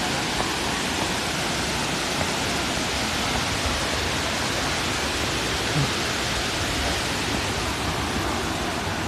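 Steady, even rushing of the Curug Malela waterfall, a broad waterfall of several falling streams.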